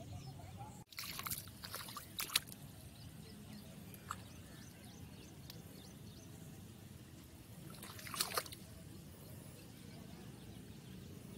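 Faint trickle of floodwater running along a field channel, broken by short bursts of rustling about a second in and again about eight seconds in.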